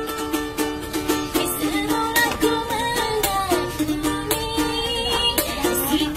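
A woman singing to her own strummed ukulele, with the strum strokes keeping a steady rhythm under the voice.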